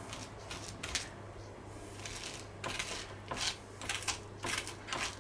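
Seeds and stringy pulp being scraped out of a halved spaghetti squash: a run of short, scratchy scrapes, a few at first and then coming quickly, about two a second, in the second half.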